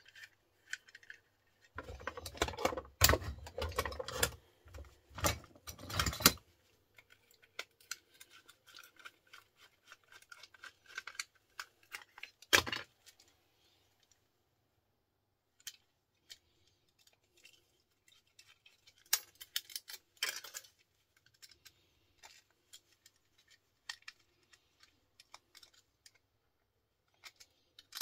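Clicks, rattles and knocks of small plastic and metal electrical parts being handled and dismantled with a screwdriver. The handling is busiest in the first several seconds, with one sharp knock about halfway through and scattered clicks after it.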